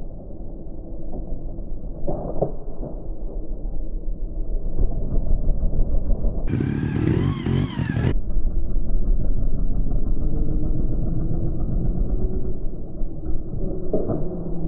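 Trials motorcycle engines revving in short bursts as the bikes are hopped and wheelied up rocks, over a steady low engine rumble. About six and a half seconds in, one bike revs hard for a second and a half, its pitch rising and falling.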